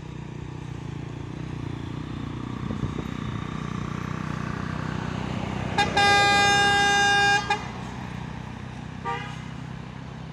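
A vehicle horn sounds one long, loud blast of about a second and a half about six seconds in, then a short toot about nine seconds in, over a heavy truck engine running low and steady.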